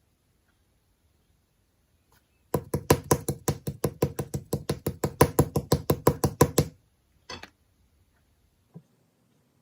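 A rapid, even run of sharp taps or knocks, about six a second for about four seconds, then one more short tap and a faint one.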